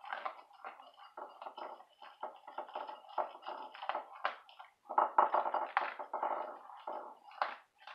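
A dog eating dry kibble from a bowl: a fast, irregular run of crunches and clicks as it chews and the kibble rattles in the bowl, loudest about five seconds in.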